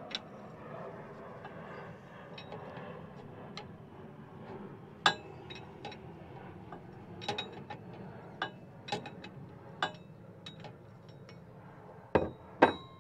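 Metal wrench clinking against the front differential's large fill plug as the plug is loosened, with scattered light clicks and a couple of louder clanks near the end.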